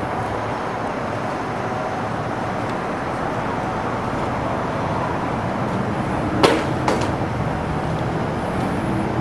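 Steady outdoor rumble and hiss of distant traffic, with two sharp knocks close together about two-thirds of the way in.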